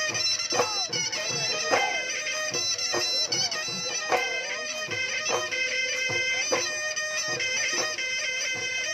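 Live Bihu folk music: dhol drums beating steadily under the held, reedy, ornamented notes of a pepa (buffalo-horn pipe).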